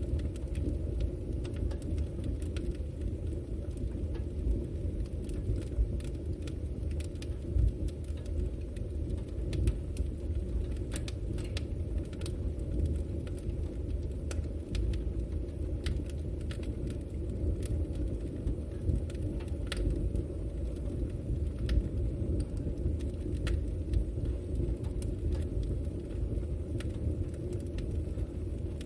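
Campfire burning: a steady low rumble with frequent, irregular sharp crackles and pops from the burning wood.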